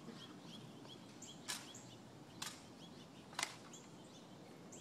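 Three sharp clicks about a second apart, the honor guards' metal-tapped heels striking the stone plaza during the changing of the guard, with faint bird chirps behind.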